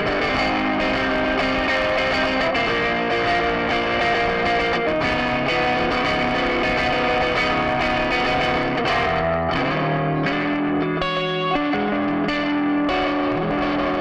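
Electric guitar with Stratocaster-style single-coil pickups played through a chain of effects pedals. It plays held notes and chords, moving to lower notes near the end.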